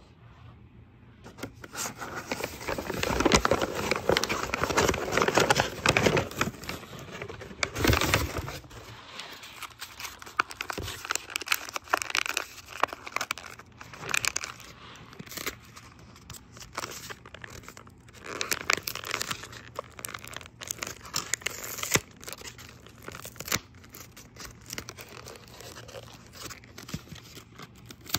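Paper crinkling and tearing as a small paper-wrapped item from a homemade paper blind bag is unwrapped by hand. A long stretch of dense rustling comes first, then shorter spells of rustling with light taps.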